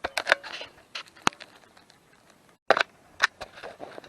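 Cracks and rustles of someone pushing through woodland undergrowth, with several sharp snaps of twigs or sticks. The sound cuts out for a moment about two and a half seconds in.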